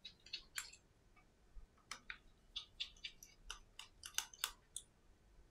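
Precision screwdriver working the tiny pentalobe screws at the bottom edge of an iPhone 7: faint, irregular metallic clicks and ticks, a few in the first second and a denser run from about two seconds in.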